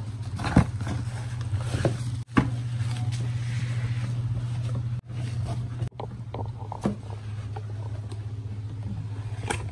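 A steady low hum that cuts out for a moment a few times, with a few short taps and rustles as a cardboard box and bubble-wrapped package are handled.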